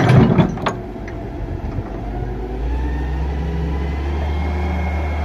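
Wheeled excavator's steel bucket knocking and scraping into hard-packed dirt, a few sharp knocks right at the start. Then its engine hum steps up and holds steady, with a faint rising whine, as the bucket digs in.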